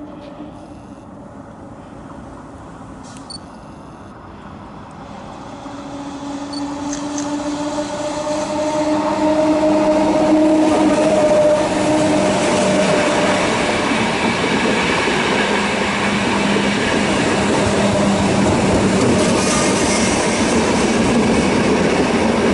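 An ÖBB class 4020 S-Bahn electric multiple unit approaching and running past along the platform. It grows louder over the first ten seconds, with a steady whining tone over the rumble of wheels on the rails, then stays loud as the cars go by.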